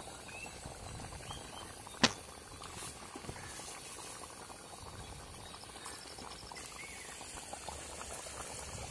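Thick chicken gravy bubbling and simmering in an aluminium pot over a wood fire, a soft continuous crackle of popping bubbles, with a single sharp click about two seconds in.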